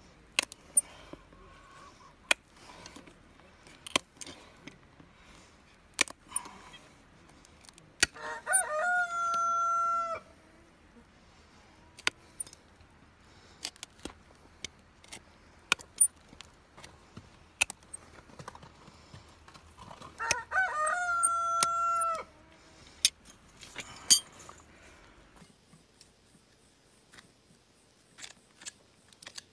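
Hoof nippers snipping through a horse's hoof wall, sharp clicks every second or two. A rooster crows twice, one long held call about 8 seconds in and another about 20 seconds in.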